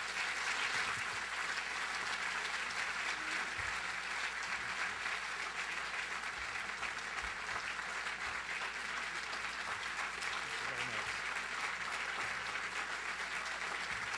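Audience applauding, a dense, steady clapping that starts at once and keeps up without fading.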